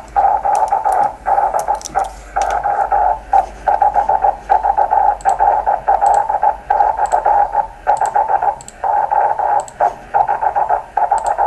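A 10 GHz rain-scatter signal received in upper sideband through a Yaesu transceiver's speaker: a rough hiss that comes and goes in irregular bursts, the smeared, noise-like sound typical of a signal reflected off rain.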